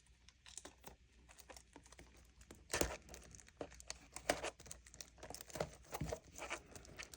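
Foil wrapper of a Pokémon booster pack crinkling as it is handled and torn at, a run of irregular crackles with a few louder crackles about three and four seconds in; the pack is hard to open.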